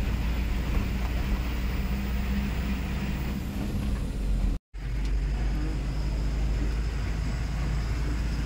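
Truck engine and road noise heard from inside the cab while driving, a steady low drone. It cuts out for a split second about halfway through, then the same drone resumes.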